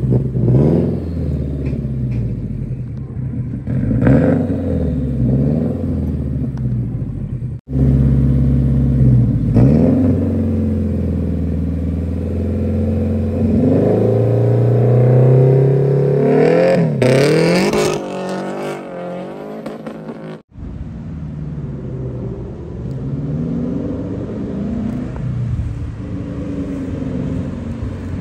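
Performance car engine being driven hard, its pitch climbing and dropping again and again through the gears, with a burst of rushing noise about seventeen seconds in; the sound cuts out abruptly twice.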